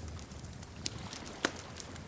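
Wood fire crackling in a fireplace: scattered sharp pops and snaps, two louder ones a little under and a little over a second in, over a low steady rumble of the flames.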